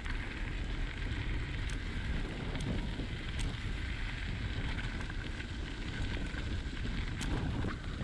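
Bicycle tyres crunching steadily over a gravel path, with wind buffeting the microphone and a few sharp ticks of loose stones.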